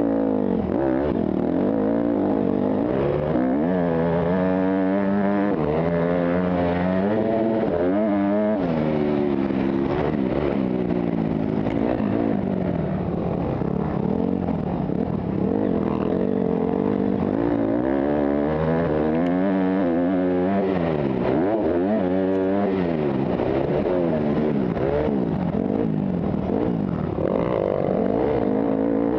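Motocross dirt bike engine at race pace, revving up and dropping back again and again as the rider works the throttle and gears around the track.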